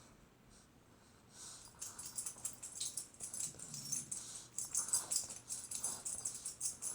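Pencil sketching on paper: repeated short, scratchy strokes.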